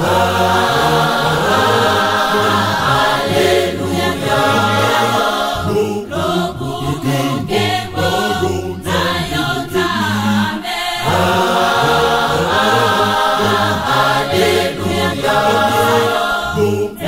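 Mixed choir of men and women singing a Lingala hymn of praise in phrases, with short breaks between lines.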